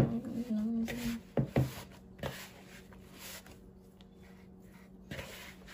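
Hand kneading sticky glutinous rice flour dough in a plastic bowl: short soft rubbing and squishing strokes, with a sharp knock at the very start and two quick knocks about a second and a half in.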